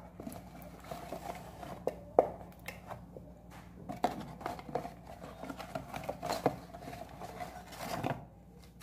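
Cardboard packaging being handled: scattered light taps, scrapes and rustles of card and paper as a box flap is opened and an inner box is slid out.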